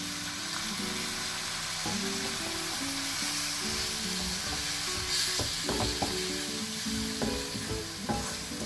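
Onion and spice masala sizzling in a hot non-stick pan as a splash of water is poured in, the hiss swelling a few seconds in. From about halfway on, a wooden spoon stirs and scrapes the mixture with light knocks against the pan. Soft background music plays underneath.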